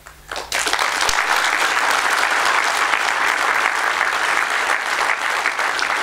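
Audience applauding: a few first claps, then full, steady applause from about half a second in.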